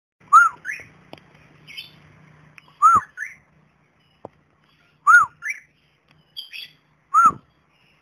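Cockatiel calling: four loud two-note whistled calls about two seconds apart, each an arched note followed by a short rising one.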